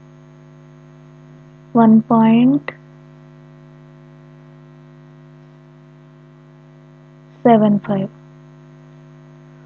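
Steady electrical mains hum with a stack of evenly spaced overtones underneath everything. A voice speaks briefly twice, about two seconds in and again near the end.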